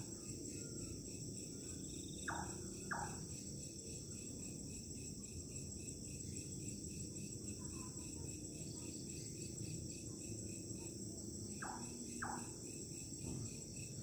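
Crickets trill steadily while an unidentified night bird gives a short two-note call, once about two seconds in and again near the end.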